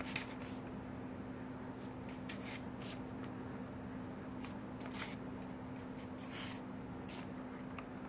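Paintbrush bristles brushing and dabbing wet paint onto paper: several short scratchy swishes at irregular intervals over a steady low hum.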